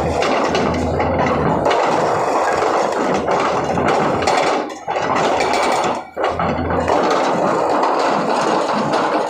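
Hydraulic rock breaker on a Sany 210 excavator hammering rock in a rapid, continuous stream of blows, broken by two brief pauses around the middle.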